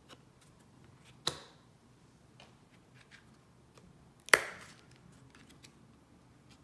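Tarot cards being turned over and laid down by hand: two sharp card slaps, about a second in and again about three seconds later, the second louder, with faint ticks of card handling between.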